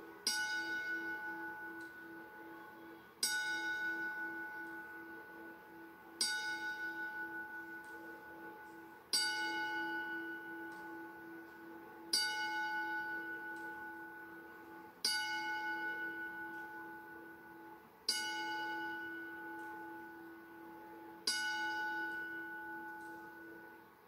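Ring bell struck eight times, about three seconds apart, each strike ringing out and fading before the next: the closing strikes of a ten-bell salute, the wrestling tribute to the dead. Heard through a television.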